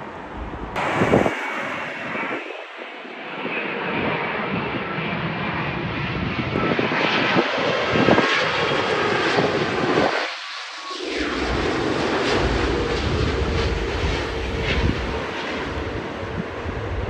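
Jet airliner's engines on landing, a steady rushing jet noise, with a deeper rumble coming in about two-thirds of the way through as the aircraft rolls out on the runway.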